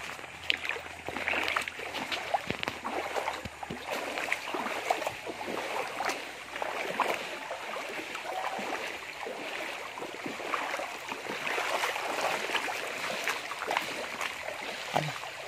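Small river flowing, an even rush of water with many small irregular clicks and ticks.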